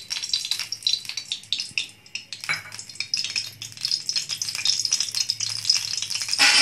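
Cooking oil heating in a steel kadhai over a gas flame, crackling and spitting with dense, rapid irregular ticks.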